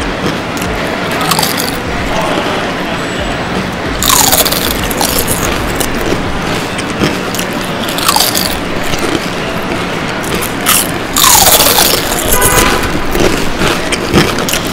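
Bag of tortilla chips crinkling and chips crunching in bursts as they are eaten, over a steady hum of traffic in a parking garage. A few short falling squeaks sound between the bursts.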